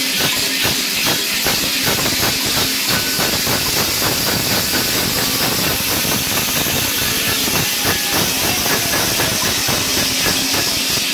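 Many large bells worn by a troupe of Perchten, clanging and rattling together in a dense, unbroken din.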